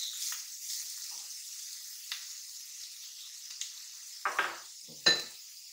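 Chopped cabbage and onions sizzling in hot oil in a frying pan, the sizzle easing as the cold cabbage goes in. A plastic spatula knocks and scrapes against the pan a few times, the loudest knock about five seconds in.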